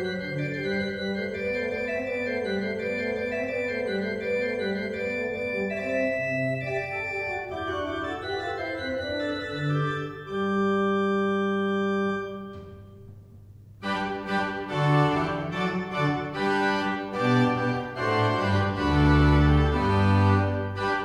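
Small pipe organ playing a baroque Christmas variation. About ten seconds in it holds a closing chord that dies away in the church's echo, and after a short break the playing resumes, fuller and with lower bass notes.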